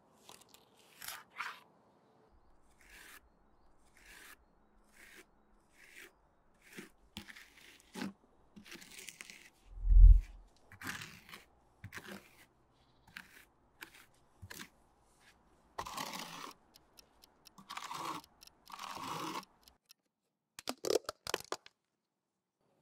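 Steel spatula scraping and smoothing gritty mineral repair putty in a series of short strokes. A dull thump about ten seconds in is the loudest sound, and a few sharp clicks come near the end.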